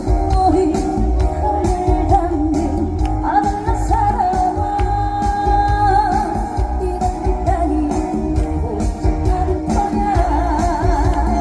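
Live trot song: a woman singing with marked vibrato over an amplified band backing with a steady beat.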